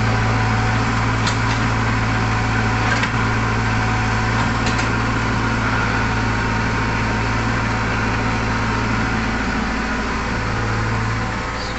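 Backhoe excavator's diesel engine running steadily as it digs, with a few short knocks in the first five seconds.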